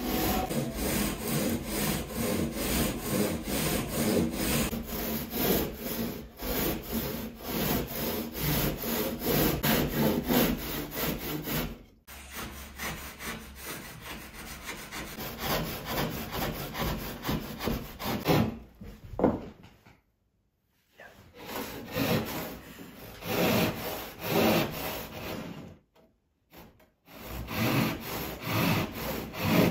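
Hand saw cutting through gypsum board (drywall) in quick, even back-and-forth strokes, about two or three a second. The sawing breaks off twice for a moment in the second half.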